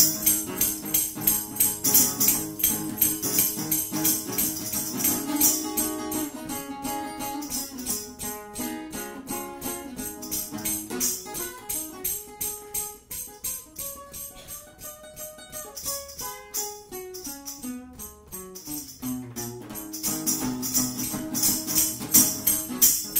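Live band playing an instrumental stretch of a song, with jangling hand percussion shaken on a steady beat. The percussion thins out for several seconds in the middle while pitched instrument notes carry the tune, then comes back strongly near the end.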